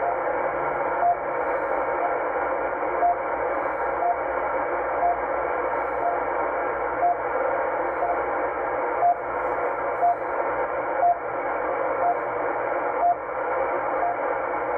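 RWM Moscow time signal on 9996 kHz received in CW mode through a shortwave receiver's speaker: a short beep about once a second, the station's second pulses, over steady band hiss and static.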